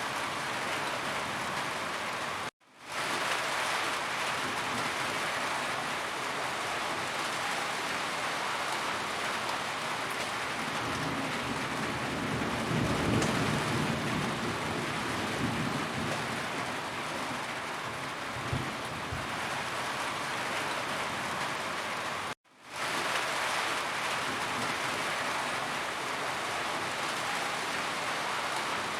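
Steady heavy rain falling on a roof, with a low rumble of distant thunder swelling in the middle. The rain cuts out abruptly twice for a moment and fades back in, where the recording loops.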